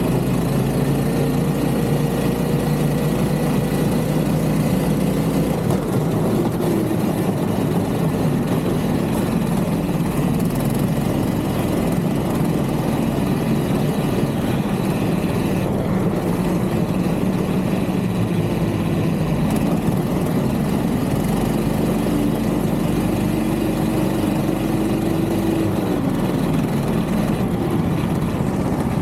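Small vehicle engine running steadily while riding through snow, its pitch shifting a few times with the throttle.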